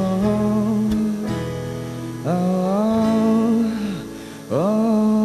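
A man singing three long wordless held notes in turn, over a gently strummed acoustic guitar.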